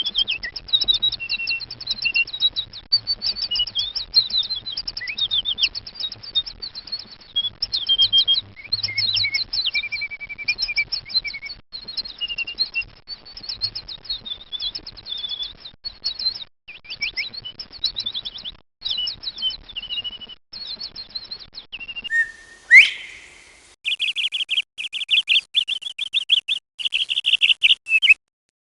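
Songbird singing a long, varied song of rapid high chirps and trills. About 22 seconds in it gives way to a different bird call: one sweeping note, then a fast, evenly repeated series of chirps.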